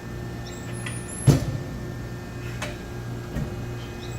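Amada RG-80 hydraulic press brake running: its hydraulic pump hums steadily, with one sharp metallic clunk about a second in and a few lighter clicks.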